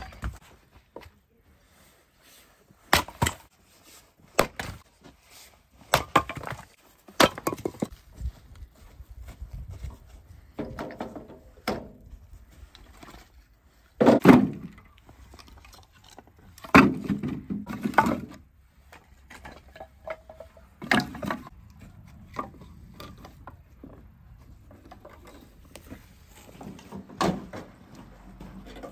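Irregular knocks and clatter, a second or two apart, some with a dull wooden thud; the loudest comes about halfway through.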